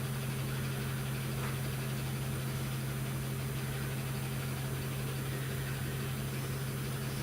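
Steady low electrical hum at one constant pitch, with fainter overtones above it, holding unchanged throughout.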